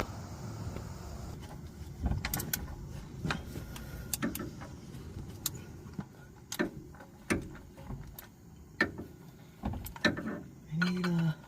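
Scattered metallic clicks and knocks of hand tools and parts being handled during a truck oil change, about a dozen, irregularly spaced, with a brief low tone near the end.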